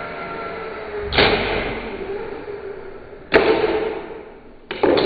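Eachine E130 mini RC helicopter's brushed electric motor and rotor whining, then the helicopter crashing: three hard knocks, about a second in, past three seconds and near the end, each followed by a short clattering tail as it hits and tumbles on the floor.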